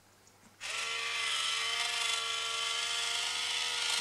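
Itazura cat coin bank's small electric motor and gears whirring steadily as the toy cat rises out of the box. The whir starts about two-thirds of a second in.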